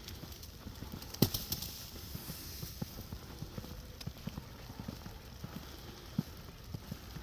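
Footsteps crunching through snow, a run of short low thuds, with one sharp click about a second in.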